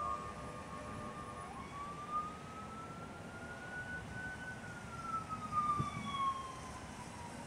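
Emergency-vehicle siren in a slow wail. It holds one pitch, then slowly rises for about three seconds and falls again, over the steady low rumble of heavy road traffic.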